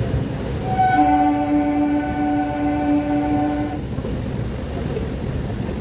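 A train horn sounds one steady blast of about three seconds, starting about a second in, over the low rumble of the passenger train rolling along the platform.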